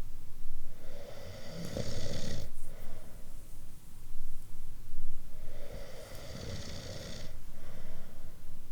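A person snoring: two long, loud snoring breaths about four and a half seconds apart, with quieter breathing between them.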